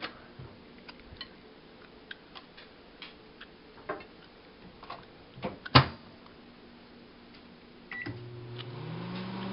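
Microwave oven being loaded: clicks and knocks of the door and a glass bowl, with a loud clack of the door shutting about six seconds in. Near the end a keypad beep, then the oven starts running with a steady hum that rises a little in pitch as it comes up.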